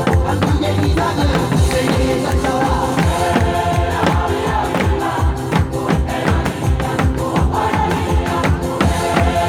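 A World Cup cheer song with singing playing loudly, with sharp drum hits throughout.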